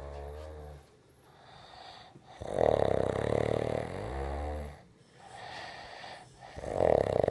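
A person snoring loudly in sleep: two long, loud snores, one about two and a half seconds in and another starting near the end, with quieter breaths between.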